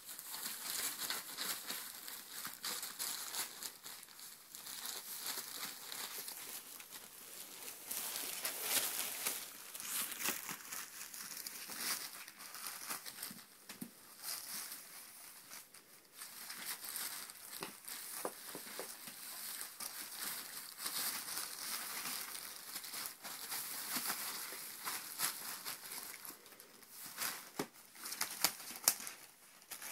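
A thin plastic sheet crinkling and rustling in irregular patches as ferrets crawl and scramble over it, with scattered sharp crackles.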